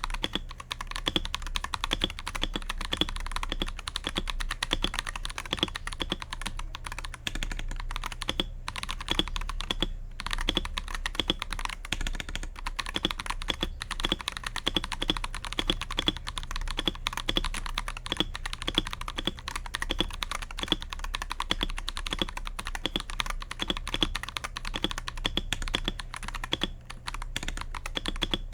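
Akko 5075S mechanical keyboard being typed on steadily, a dense run of keystroke clacks with a couple of brief pauses about eight and ten seconds in.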